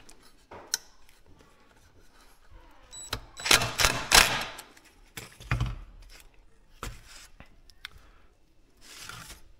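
Parts being handled on a workbench: scattered clicks and knocks, with a louder stretch of handling noise lasting about a second starting about three and a half seconds in, and a dull knock a little later.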